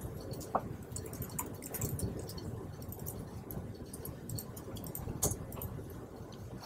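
Laptop keyboard typing: irregular, scattered key clicks over a steady low room hum.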